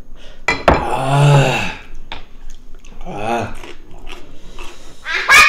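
Wordless mealtime sounds: a man's drawn-out low hum about a second in and a shorter voiced sound about three seconds in, with light clicks of chopsticks and ceramic bowls and a sharp clack near the end.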